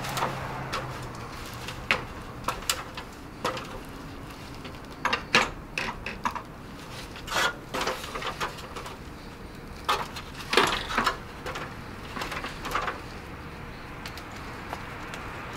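Irregular knocks, taps and clicks of hands handling tools and a black window frame on a stepladder, with a few sharper knocks in the middle.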